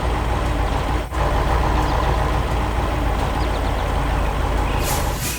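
Heavy vehicle engine sound effect running steadily, dipping briefly about a second in, with two short bursts of hiss near the end.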